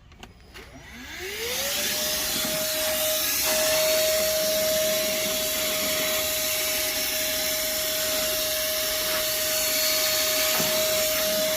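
Moosoo 18 V cordless handheld vacuum switched on after a couple of clicks, its motor whine rising over about a second to a steady pitch, then running with air rushing through the carpet crevice tool as it sucks up dirt.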